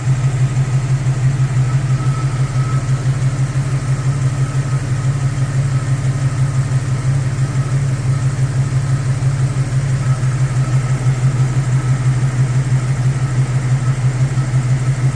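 1999 Jeep Cherokee XJ engine idling steadily with an even, rapid pulse, the sound being checked for piston slap.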